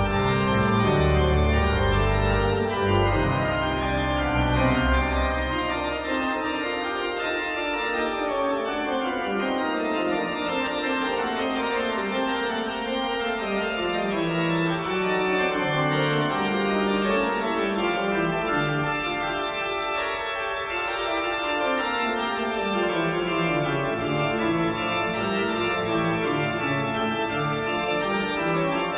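Organ music: sustained chords and held notes, with deep bass notes for the first several seconds, then lower lines stepping down in pitch.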